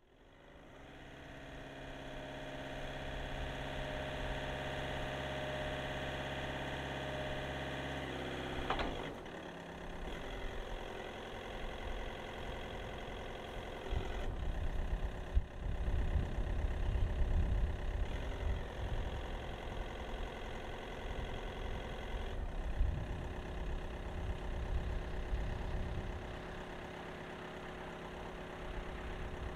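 Jungheinrich DFG 435s diesel forklift engine running at steady raised revs while its hydraulic mast is lifted, then dropping in pitch back toward idle about nine seconds in. It keeps running with a heavier, uneven low rumble through the middle while the raised mast is let down.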